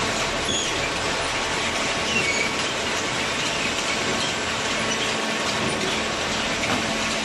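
Hydraulic waste-paper baler machinery running: a loud, steady mechanical noise with scattered faint metallic squeaks and clicks.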